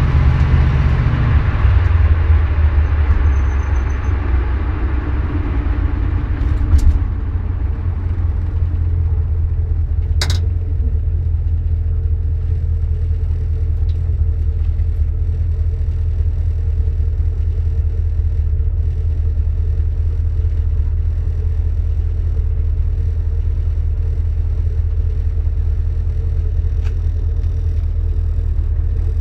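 1973 Dodge Dart's 318 V8 and 904 automatic drivetrain running with a low steady rumble, fuller and brighter for the first couple of seconds before settling into an even drone. A single sharp click about ten seconds in.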